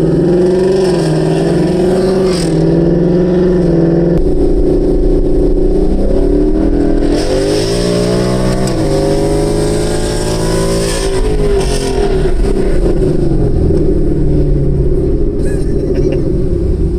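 2018 Mustang GT's 5.0-litre Coyote V8 running through a free-flowing exhaust with Borla S-Type axle-back mufflers, driven under throttle. The exhaust note drops a step about four seconds in, climbs in pitch on a harder pull from about seven seconds, and falls back at an upshift about nine seconds in.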